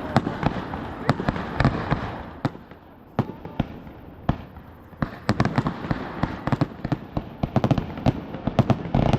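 Fireworks display: many sharp bangs in quick succession, thinning to a few scattered bangs about two and a half seconds in, then a dense volley from about five seconds on.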